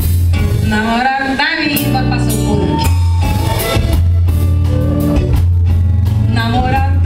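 Live band music: drum kit and a steady bass line under a melody that slides up and down in pitch.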